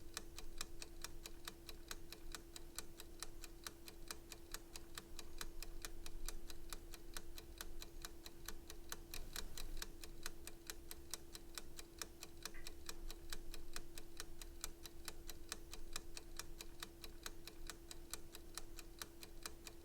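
Timer ticking with fast, even ticks, several a second, over a faint steady hum.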